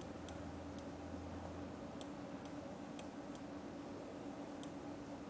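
Quiet room tone with a faint steady hum and a scattering of faint, irregular high ticks.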